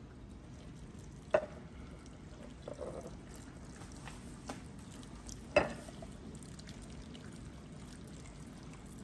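Hot water and Worcestershire sauce poured in a thin, quiet trickle from a glass measuring cup over steak and onion rings in a casserole dish. Two sharp clicks, about a second and a half in and again near the middle, stand out above the pouring.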